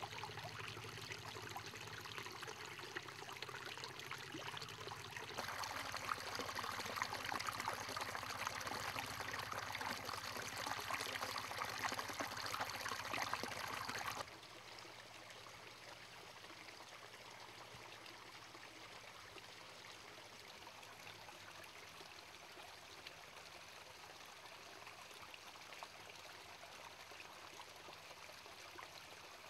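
Stream water running over rocks in a small cascade, getting louder about five seconds in. About halfway through it drops suddenly to a quieter, steady trickle.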